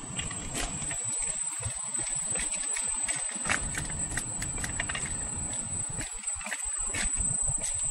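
Wind buffeting a camera microphone in uneven gusts, with scattered small ticks and a constant high-pitched whine.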